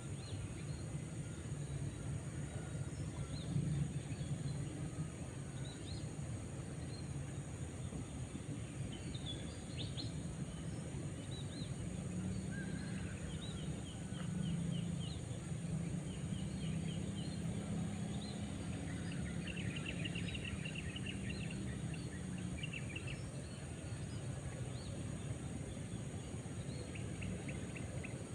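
Outdoor ambience: a steady low background rumble with small birds calling now and then in short runs of quick repeated chirps, mostly in the second half.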